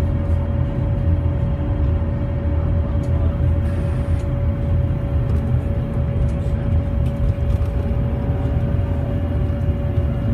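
Volvo B7TL double-decker bus's engine running with a low rumble, and a steady high whine held at one pitch throughout. This is the unexplained odd noise, not normally heard on this type of bus.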